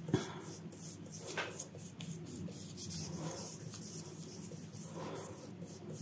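Wide flat brush stroking gouache across paper: soft repeated brushing strokes that swell and fade at an uneven pace, with a light knock just at the start.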